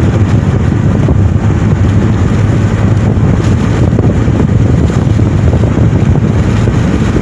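Steady low rumble of road and wind noise from a moving car, heard from inside the car as it drives at speed.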